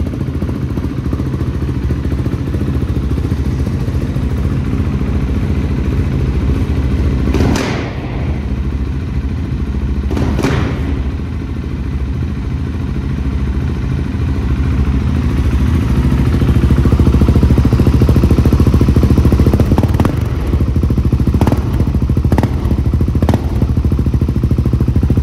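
KTM 690 SMC R's single-cylinder engine idling through a straight-piped FMF 4.1 exhaust with a titanium header and no dB-killer or catalytic converter, shortly after a cold start. The idle gets louder about two-thirds of the way through. There are a couple of brief noises about a third of the way in and a few knocks near the end.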